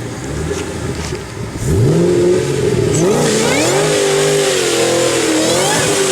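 A forced-induction car engine is idling, then revved hard from just under two seconds in. After that it is blipped up and down several times, with a high hissing whine rising over the engine note.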